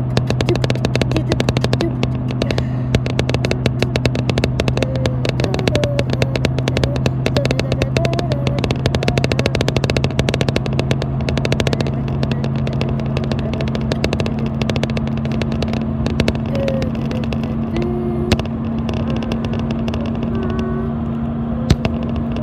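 Road and engine noise inside a car cruising at highway speed: a steady drone with a fine rattle running through it.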